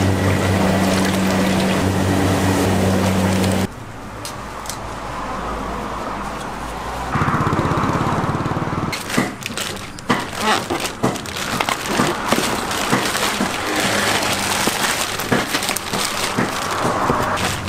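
A steady low hum while liquid is poured from a plastic bag into a large wok, cutting off suddenly a few seconds in. After a stretch of quieter outdoor background, plastic bags of raw beef crinkle and rustle with many sharp crackles as they are lifted and handled.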